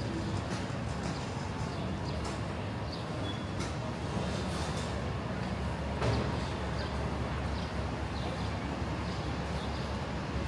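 City street ambience: a steady low rumble of traffic with scattered short clicks and knocks.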